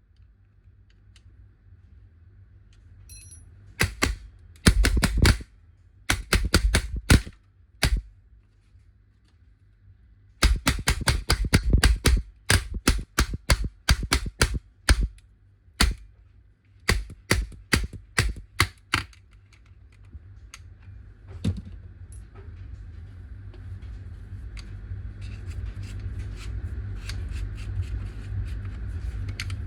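Paintball marker with a burping fault firing strings of sharp shots, a few a second, in two runs with a short pause between them. Near the end a steady noise slowly builds, with a few faint clicks.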